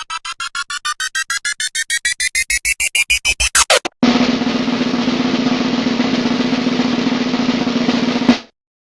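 Sound-effect riser: a rapid train of pulses that speed up and climb in pitch, ending in a quick sweep just under four seconds in. It cuts abruptly to a steady noisy hum with a low tone, which stops short shortly before the end.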